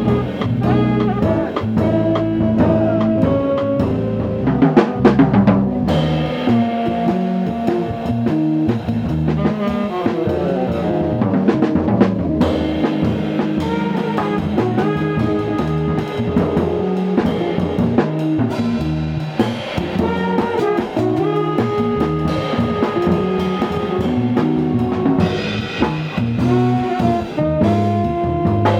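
Live jazz band playing: a drum kit keeping time under held melody notes and a walking low line.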